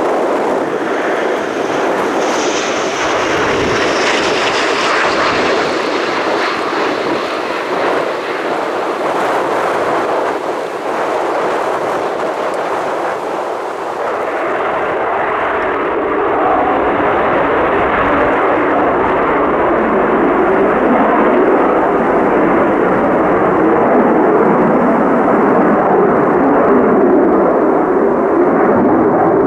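Military jet aircraft flying close past on a low circuit: loud jet engine noise that comes in suddenly, with a high whine falling in pitch over the first few seconds, then a deeper steady rumble that grows a little louder toward the end.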